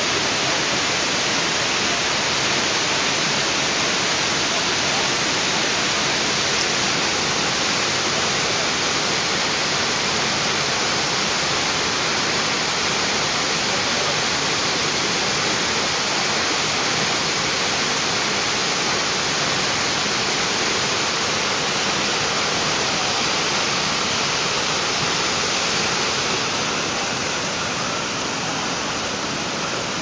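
Cheonjiyeon Waterfall's twin falls pouring into their plunge pool: a steady, unbroken rush of falling water, easing slightly in the last few seconds.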